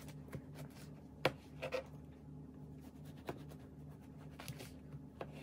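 Knife sawing through a crusty baguette: quiet rasping and crackling of the crust, with three sharp clicks spread through it.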